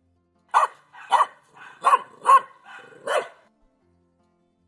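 Dog barking: five loud barks with softer ones between them over about three seconds.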